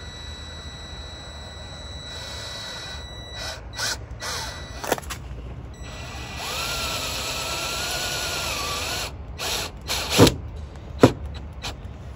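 Cordless Ryobi drill driving screws into a van door panel: the motor runs briefly about two seconds in, then for about two and a half seconds with its pitch wavering under load. A few sharp knocks come midway and near the end, the last two the loudest.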